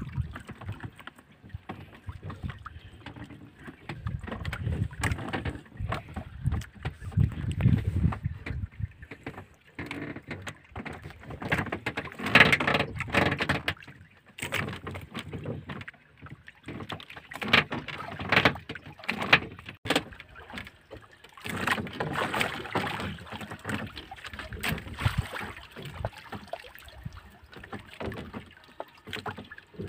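Water slapping and sloshing against the hull of a drifting bamboo-outrigger fishing boat, with irregular knocks and rustles as a fishing line is handled over the side.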